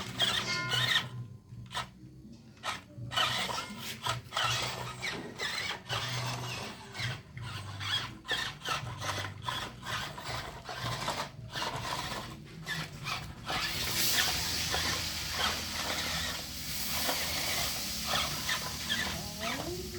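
Small electric motors and gearboxes of RC construction models whining and squeaking in short, irregular bursts over a low hum, with a hissing, scraping noise joining about two-thirds of the way in.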